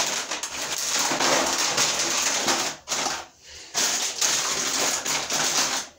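Plastic packaging and a shopping bag crinkling and rustling as groceries are handled, a dense crackle broken by two short pauses about halfway through.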